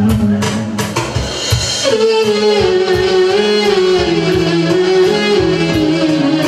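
Live band music led by a clarinet playing a wavering, ornamented melody that slides up into a higher line about two seconds in, over a steady drum beat and band accompaniment.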